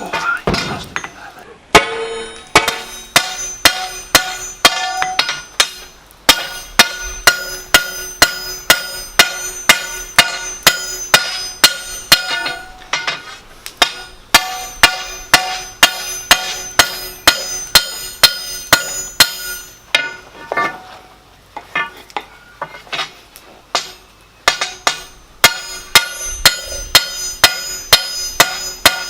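Hand hammer striking a steel crowbar on an anvil to forge it, about two blows a second, each blow ringing. The blows thin out for a few seconds about two-thirds of the way through.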